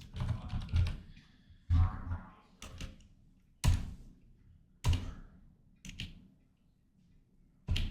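Computer keys or mouse clicked hard on a desk: about seven separate sharp clicks, each with a dull thud, roughly one a second.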